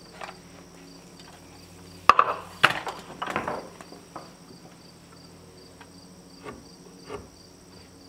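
Crickets chirping steadily in even pulses. About two seconds in come two sharp knocks close together, the loudest sounds here, followed by a brief clatter.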